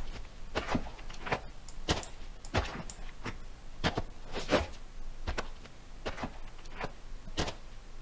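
Footsteps of boots on rocky dirt, a sound-library Foley effect, at a steady walking pace of a little under two steps a second, getting quieter as the walker moves away.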